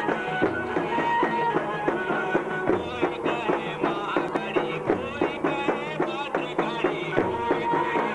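Garba folk music played by a live band, with a quick steady beat under a wavering melody line.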